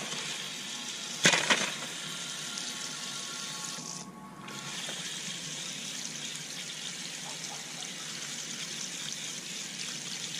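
Mains water running through a pressure washer's gun and lance with the pump motor off, a steady stream splashing onto grass as air is bled from the system before start-up. A couple of sharp clicks come about a second and a half in, and the flow briefly drops around four seconds in.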